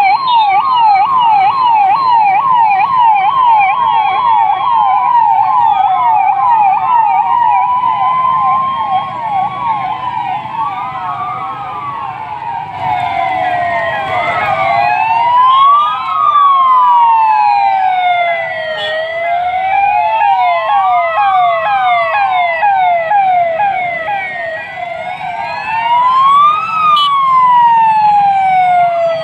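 Several police vehicle sirens sounding together and overlapping. Quick yelping sweeps in the first few seconds give way to slower wails that rise and fall every few seconds.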